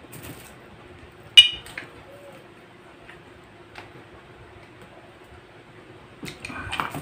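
A glass water mug clinks once sharply about a second and a half in, followed by a few fainter clicks and, near the end, a cluster of softer knocks as the glasses are handled and drunk from. A faint steady hum runs underneath.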